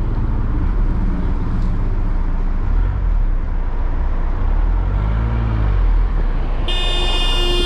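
Road traffic: cars driving past with a steady low rumble of engines and tyres, swelling as one passes. About a second before the end, a car horn starts sounding, long and steady.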